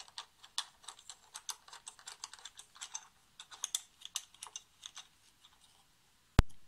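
Light, rapid clicks and taps of a gimbal mounting plate being handled and adjusted against a DSLR camera body, followed by one sharp click near the end.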